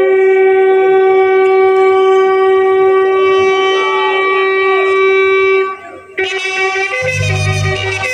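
Bugle sounding the flag-lowering call: one long steady note held for over five seconds, a short break, then another long held note. A low rumble comes in near the end.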